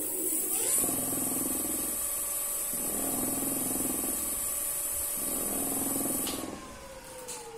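Electric scooter hub motor spinning its wheel with no load: a whine rises quickly in pitch, then holds steady for about five seconds. Near the end the power cuts and the whine falls slowly in pitch as the wheel coasts down.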